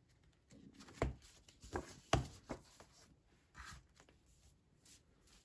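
Thick planner pages and a laminated monthly divider being turned and pressed flat in a ring binder: a few soft paper rustles and light taps, the sharpest about a second in and around two seconds in.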